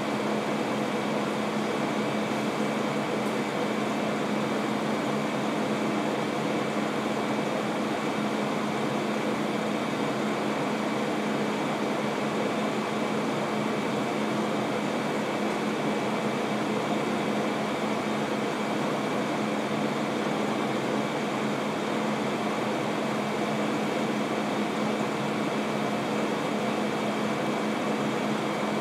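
Steady air-conditioning hum and hiss, with a low tone and a faint high tone, unchanging throughout.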